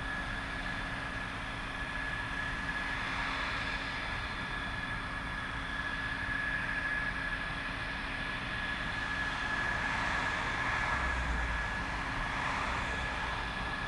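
F-16 Fighting Falcon jet engines running at idle, a steady high whine over a constant rushing noise.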